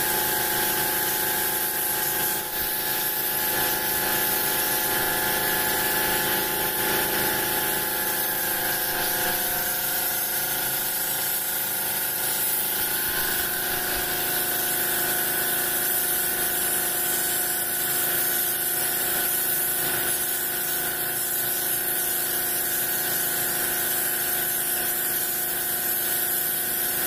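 Compressed-air spray gun spraying ship's red-lead primer onto a 1968 VW Beetle floor pan: a steady hiss of air and paint, with a steady mechanical whine underneath.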